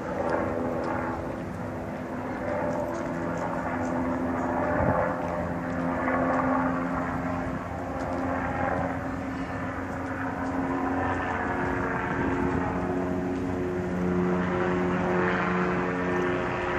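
Police helicopter circling overhead: a steady engine and rotor drone with several held tones that drift slightly in pitch.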